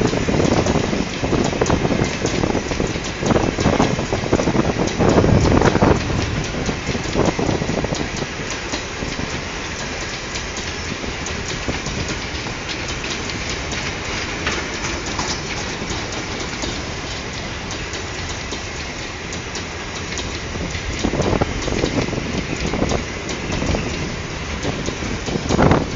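Boxcars and hopper wagons of a long freight train rolling past close by. There is a continuous rattle and rumble of steel wheels on rail, with clusters of clattering knocks as wheelsets pass over rail joints. The knocks are loudest early on and again near the end, with a steadier, quieter stretch in the middle.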